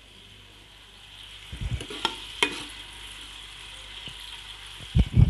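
Sliced onions frying in ghee in an aluminium pressure cooker with a steady sizzle. A steel ladle stirs them, clinking twice against the pot about two seconds in, with a few dull knocks near the end.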